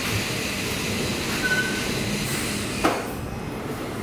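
R46 subway train running slowly into the station and coming to a stop, with a short high tone about a second and a half in. A sharp sound comes just before the train stands still, and the running noise drops after it.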